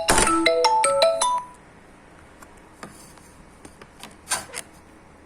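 A quick electronic chime melody of bell-like notes that stops about a second and a half in. After it, a few faint clicks and taps of a small M8 cable connector being handled.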